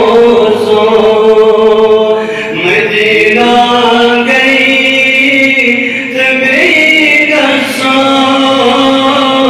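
A man singing a Kashmiri naat solo into a microphone, in long held notes that bend and turn in pitch, each lasting a few seconds.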